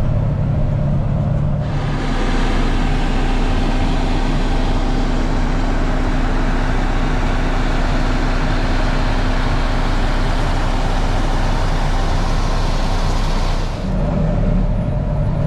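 Diesel truck engine running with a low hum. At about two seconds it cuts to a steady, louder machine noise with a constant hum, and near the end it switches back to the low engine hum.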